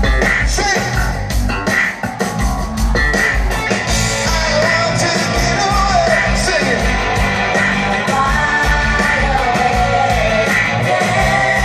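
Live rock band playing through a large outdoor PA, heard from far back in the crowd: drums and electric guitar with a voice singing.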